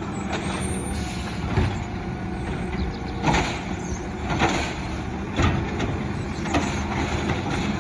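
Truck engine running steadily, with a short sharper accent about once a second.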